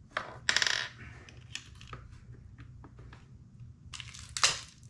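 Small metal parts clinking and rattling as they are handled by hand. There are two louder ringing clinks, about half a second in and near the end, with light clicks between them.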